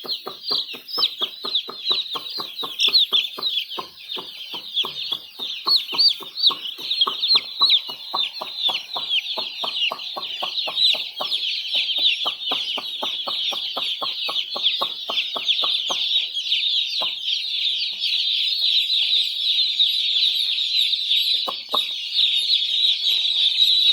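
A large flock of chicks peeping continuously, many short high down-slurred peeps overlapping. Under it a steady ticking at about four a second stops about two-thirds of the way through.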